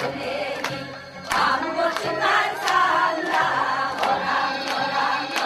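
A group of women singing a Gyeonggi folk song (Gyeonggi sori) together, the voices swelling in about a second and a half in, over a steady beat of sharp strokes about three every two seconds.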